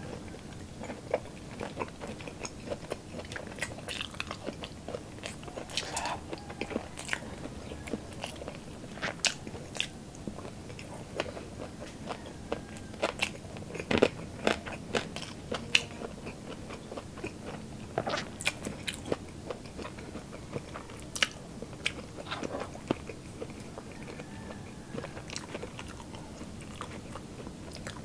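Close-up crunching and chewing of crispy deep-fried pork intestine (chicharon bulaklak): irregular sharp, crackly crunches between quieter chewing, the loudest about halfway through.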